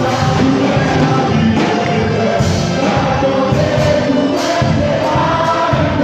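Male vocal group singing together as a choir.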